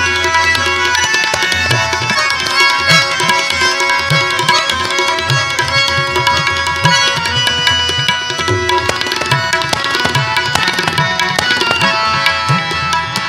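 Instrumental passage of Sikh kirtan music: tabla playing a rhythm of repeated strokes under sustained melody notes.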